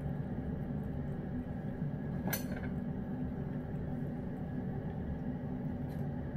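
A steady low hum with one sharp clink a little over two seconds in, like something knocking against the cat's ceramic food bowl, and a fainter click near the end.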